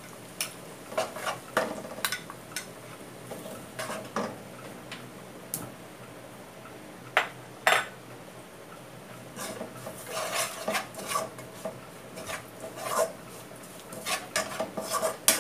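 A metal spoon clinking and scraping against a metal pot while curry powder is stirred into ginger and shallots frying in oil. There are two sharp knocks about halfway through and busier bouts of scraping near the end.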